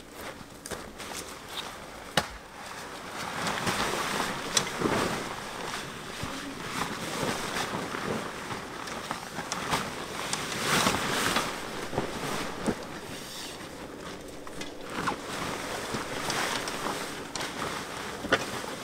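Gazelle pop-up screen tent being set up: fabric rustling and swishing, with scattered sharp clicks and knocks from its frame.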